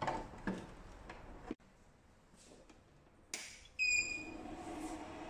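Plastic casing of a diamond microdermabrasion beauty machine being handled and closed, with a few knocks. Near the end the machine is powered on: a single short electronic beep, then a steady hum from its internal cooling fan.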